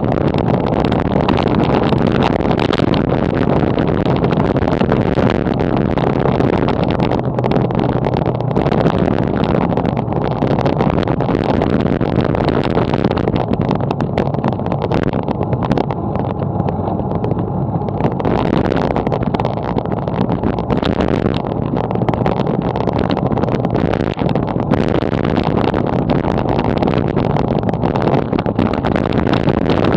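Wind rush buffeting the microphone and tyre rumble from a bicycle riding along a city street, a steady low noise that thins out for a few seconds past the middle.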